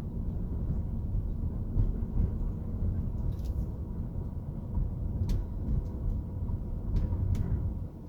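Car driving slowly on a residential street, heard from inside the cabin: a steady low rumble of road and engine noise, with a few sharp light clicks or rattles along the way.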